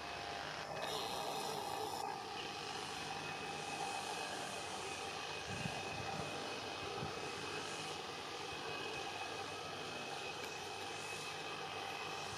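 SA134 diesel multiple unit's engine running with a steady drone, with a brief hiss about a second in.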